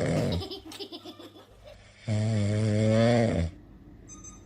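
Loud snoring: two long, droning snores about a second and a half each, with a rattly breath in between.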